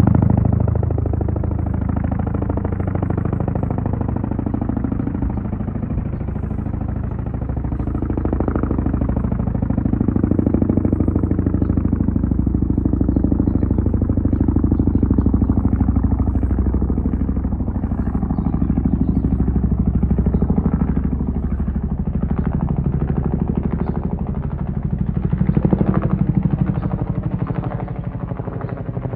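Aircraft engine noise: a loud, continuous low rumble whose tones slowly shift up and down.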